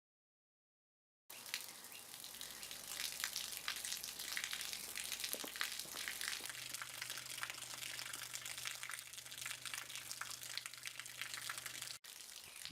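Running water pouring and splashing with a crackly hiss, starting after a second of silence. A low steady hum joins about halfway through, and everything cuts out briefly near the end.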